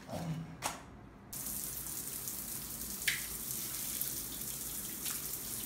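Shower water running onto a tiled floor, switched on abruptly about a second in and then running steadily to rinse off the foot-mask liquid. One brief sharp sound is heard about three seconds in.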